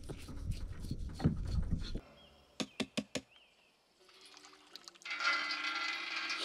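A knife scraping and cutting on a fish on a cutting board, then a few sharp clicks. From about five seconds in, water pours steadily into a metal bucket.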